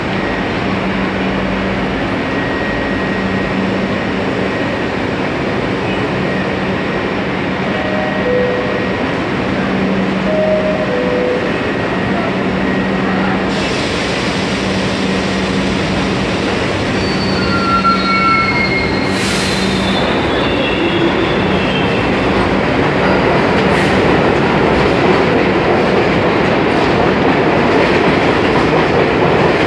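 New York City subway train on the 3 line running at the station platform: a steady rumble with a low hum, growing louder over the last ten seconds or so as the cars move past the platform, with some wheel clatter.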